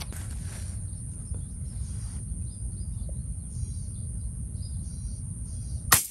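A single sharp crack about six seconds in from a Blacan X PCP air rifle firing, the loudest sound here. It comes over a steady low outdoor rumble, with faint bird chirps in the middle.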